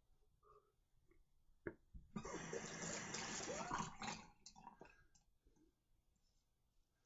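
A sharp click, then a tap running and splashing in a sink for about two seconds before it stops.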